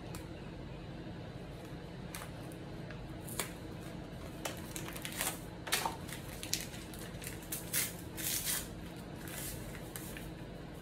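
Paper packet of Jell-O gelatin powder being handled and torn open: an irregular run of short crinkles and rips, busiest in the middle.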